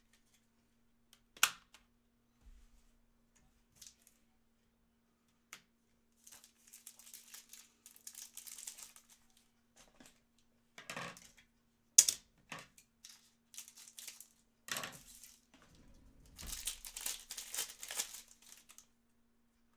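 Foil trading-card pack wrapper crinkling and being torn open, in crackling bursts through the middle and again near the end. A few sharp knocks stand out, the loudest about a second and a half in and again around twelve seconds.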